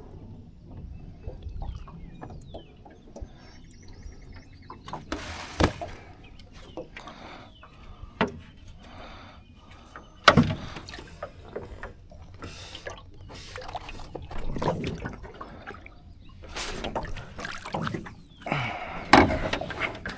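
Water splashing and sloshing beside a small boat, with several sharp knocks against the boat, as a hooked catfish on a jug line is pulled in and thrashes at the surface.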